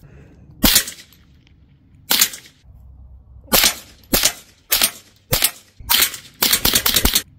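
Rifle shots, sharp and short: about six single shots spaced irregularly, then a quick run of several shots close together near the end.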